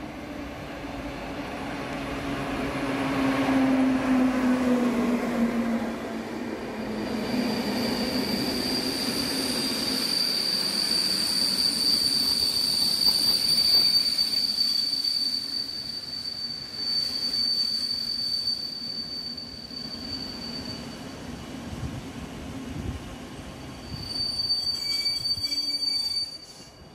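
PKP Intercity electric locomotive and its passenger coaches passing close by, the locomotive's hum falling in pitch as it goes past. The coaches then roll by with a steady high-pitched wheel squeal, which breaks off and returns near the end.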